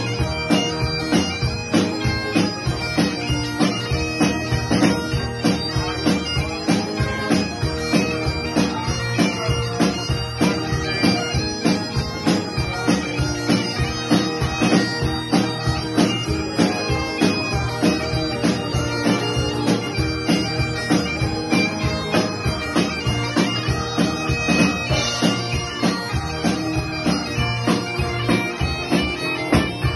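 Great Highland bagpipes playing a tune over their steady drones, accompanied by acoustic guitar and electric keyboard at a steady beat of about two pulses a second.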